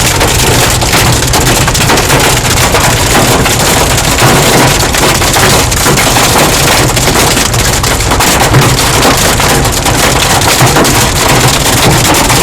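Hail drumming hard and fast on a car's roof and windows, heard from inside the car: a steady, dense clatter of countless sharp hits over the roar of the storm.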